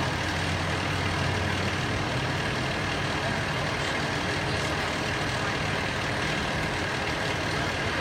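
Heavy vehicle engine idling steadily, a low hum that is strongest over the first couple of seconds, under a constant outdoor hiss.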